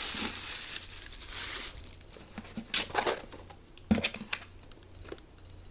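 Paper packing and cardboard rustling and crinkling as a box of cards is unpacked by hand: a long rustle at first, then softer handling with a few sharp knocks.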